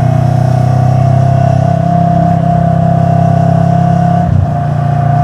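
Steady engine drone and road noise of a vehicle at cruising speed, with a steady whine above it. The drone dips briefly about four seconds in.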